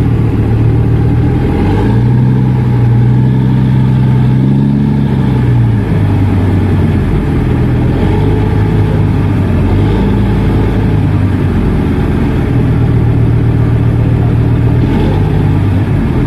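Boat engine running loud and steady on a tug working a barge, its pitch rising about two seconds in, dropping back a few seconds later, and rising again in the second half as the engine speed is changed for the manoeuvre.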